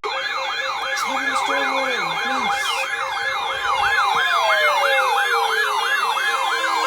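Electronic yelp siren, its pitch sweeping up and down about three times a second, layered with slower falling tones and a few short low blips.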